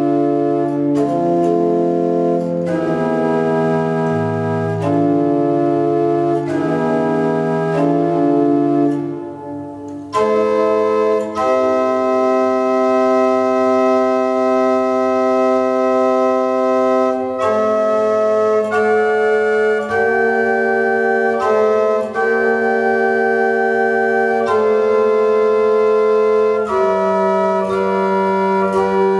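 Organ playing slow, sustained chords: shorter chord changes in the first few seconds, a brief quieter moment about nine seconds in, then long held chords.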